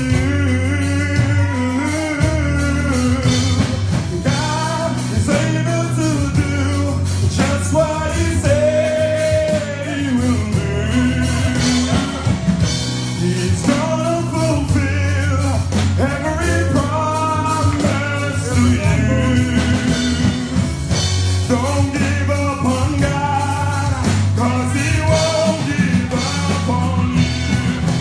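Live gospel song: a male lead singer and a choir singing over a band with bass and guitar, the melody held in long, bending notes.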